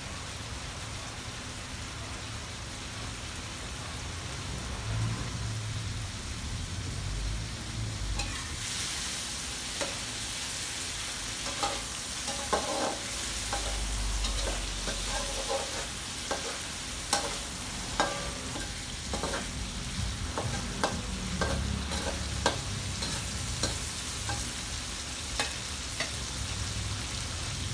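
Shrimp frying in butter and garlic sauce in a metal wok, a steady sizzle that grows louder about eight seconds in. From about ten seconds in, a spatula scrapes and clicks against the wok again and again as the shrimp are stirred.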